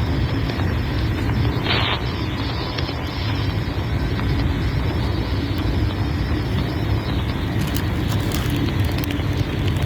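Steady engine and road rumble inside a paratransit bus. There is a brief hiss about two seconds in and light rattling clicks near the end.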